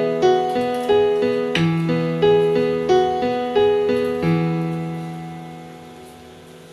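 Background piano music: a gentle melody of single notes, about three a second, ending about four seconds in on a held chord that fades away.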